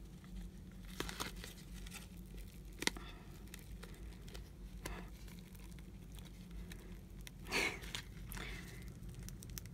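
Rustling and crinkling of satin ribbon, tulle mesh and a cardstock card being handled as the ribbon is pulled through punched holes, with scattered small clicks and a louder rustle about seven and a half seconds in.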